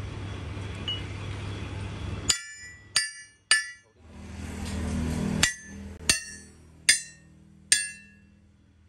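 Seven hammer blows on a steel pipe, each a sharp metallic clang that rings on briefly, in a group of three and then a group of four, knocking a torch-cut ring off the pipe. Before and between the groups there is a steady rushing noise from the gas cutting torch.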